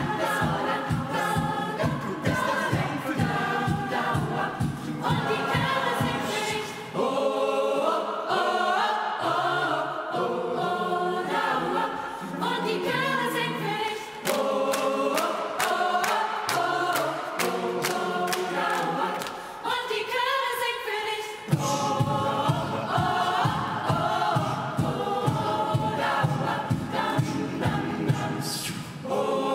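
A choir singing a hymn-like song with accompaniment; a steady low beat runs under the singing for the first several seconds, drops out, and returns about two-thirds of the way through.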